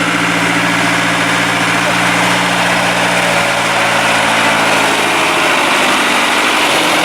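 A vehicle engine idling steadily, fading out a few seconds in, over a loud steady rushing noise.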